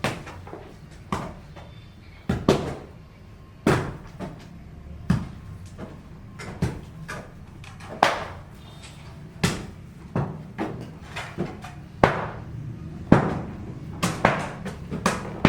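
Irregular knocks and bangs of building work, roughly one a second, some with a short ringing tail.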